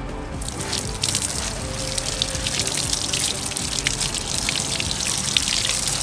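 Water pouring from an open pipe spout and splashing over a bunch of long green leaves rinsed by hand under it. The steady hiss of the water grows louder about half a second in.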